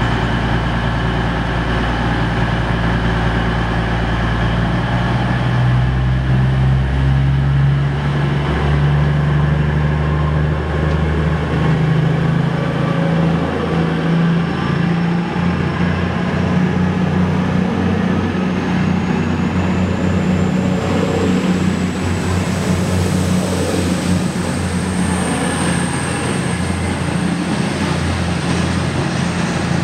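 Class 222 Meridian diesel-electric multiple unit departing: its underfloor diesel engines throttle up in two steps as it pulls away. A high whine rises in pitch as the train picks up speed, then levels off.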